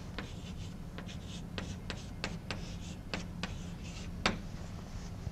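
Chalk writing on a blackboard: a quick run of short taps and scratches as symbols are written, with the sharpest tap about four seconds in.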